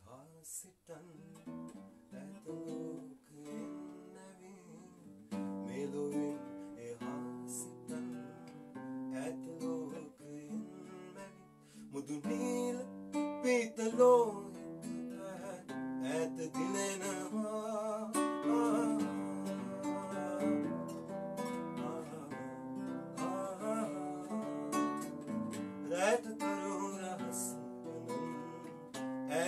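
A man sings an acoustic song while playing a nylon-string classical guitar. The playing gets louder about five seconds in.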